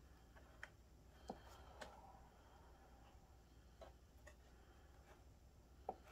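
Near silence with about six faint, short taps and clicks spread through, from a wet poured canvas being handled and shifted on its cardboard support.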